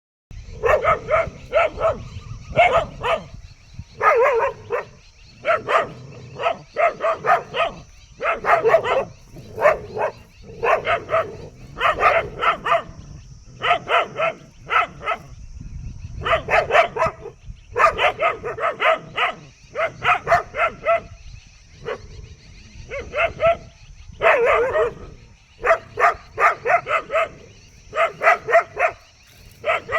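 A dog barking in quick runs of three to five barks, over and over, while confronting a snake.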